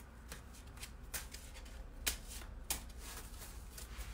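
A deck of oracle cards shuffled by hand: a string of quiet, irregular card clicks and rustles.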